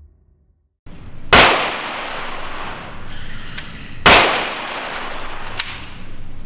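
Two loud gunshots about three seconds apart at a shooting range, each with a ringing echo tail, over steady background noise, with a few fainter cracks after them.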